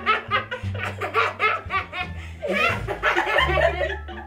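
Several young women laughing hard in quick repeated bursts, with a loud breathy shriek of laughter about halfway through, over background music with a bass line.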